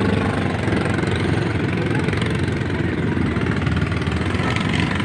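Small motorcycle engine running steadily at low speed as the bike rolls slowly past.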